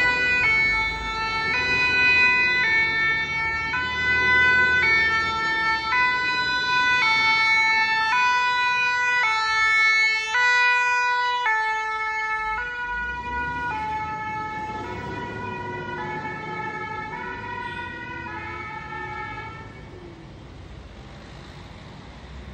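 French fire engine's two-tone siren, alternating between two pitches about once a second. Its pitch drops slightly as the truck passes, and it then fades as the truck drives away.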